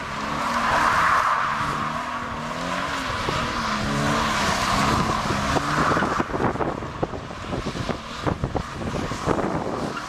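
Toyota GT86's flat-four engine revving up and down as the car spins its rear tyres through donuts on wet tarmac, with loud tyre noise over the engine. About six seconds in, the revs and tyre noise drop away.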